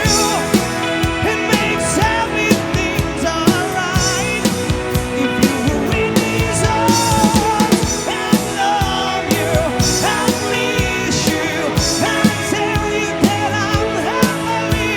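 Live band playing a rock song: a lead singer over drum kit and guitar.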